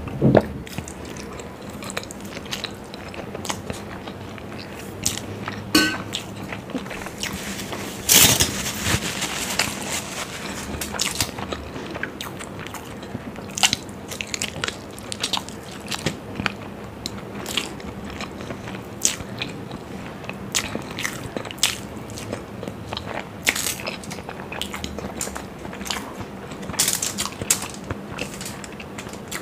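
Close-miked eating sounds of masala-fried hard-boiled eggs being bitten and chewed: soft wet chewing dotted with sharp mouth clicks and smacks. It opens with a gulp from a steel water bottle, and a louder burst of noise comes about eight seconds in.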